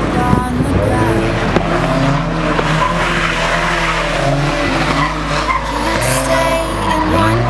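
Car tyres squealing in a string of wavering squeals that rise and fall as a sedan drifts across pavement.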